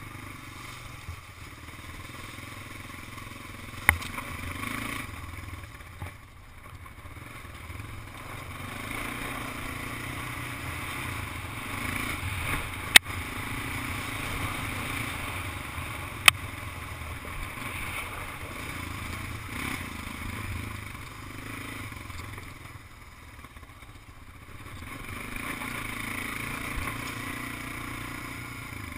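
A large Honda ATV's engine running while riding, its loudness rising and falling with the throttle. Three sharp knocks cut through it: about four seconds in, near the middle, and a few seconds after that.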